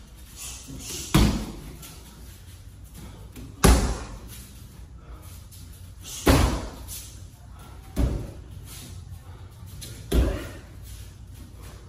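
Kicks landing on a handheld kick shield: five sharp slaps about two seconds apart, each echoing briefly in the large room.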